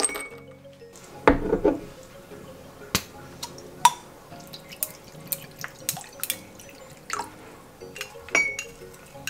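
Soba dipping sauce poured over ice cubes in a small ceramic bowl, then a run of light clicks and taps as chopsticks scrape chopped green onions out of a small glass bowl into it. Soft background music.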